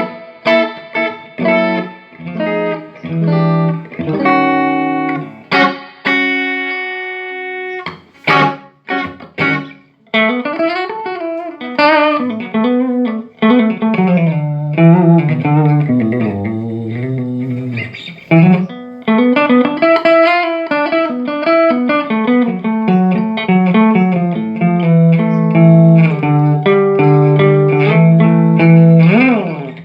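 Electric guitar played through a Peavey Classic 30 all-tube combo amp, picking single notes and chords with bent and sliding notes in the middle and a few strummed chords early on. The amp is working again after repair of bad filter caps and a 220 V/110 V mains mismatch.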